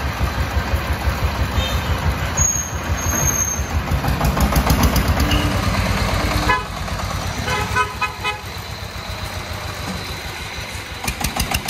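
A công nông's 24 hp single-cylinder diesel engine chugging with an even low beat as the truck pulls away. The engine is loudest about four to six seconds in and drops back about halfway through. A vehicle horn toots a few short times just after the middle.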